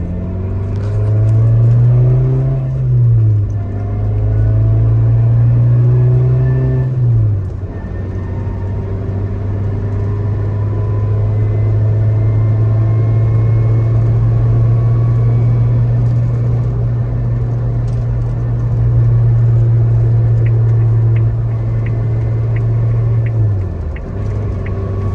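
Suzuki Jimny JB74's 1.5-litre four-cylinder engine through a de-catted, straight-piped exhaust, pulling up through two gears and then holding a steady, loud low drone. The engine note dips near the end. The owner judges this drone too much with the straight pipe.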